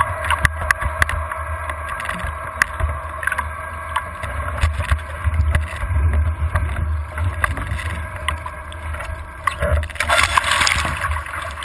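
Wind buffeting the microphone and water rushing past a foiling Moth dinghy under sail, with scattered knocks and ticks from the rig. About ten seconds in comes a louder rush of spray as the slowing boat drops toward the water off its foils.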